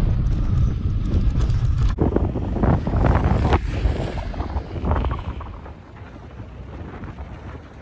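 Wind buffeting a moving camera's microphone during a mountain-bike ride: a heavy, uneven low rumble that drops away to a quieter rush about five seconds in.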